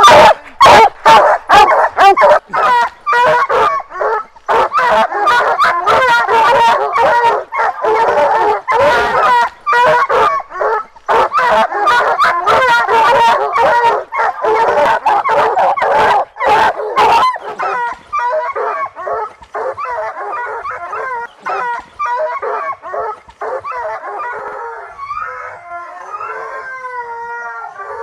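English bear hounds baying hard at a tree where they have a black bear treed, many loud overlapping bays close by. About 17 seconds in the baying turns fainter and more distant, with longer, drawn-out howling calls near the end.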